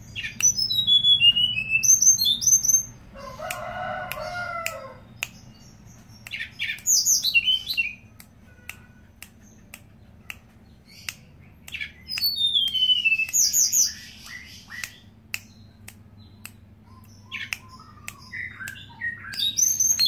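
Hill blue flycatcher singing in bursts of high, quick whistled phrases that slide downward, repeated four times with pauses between. A lower-pitched call sounds around three to five seconds in, and sharp ticks are scattered throughout.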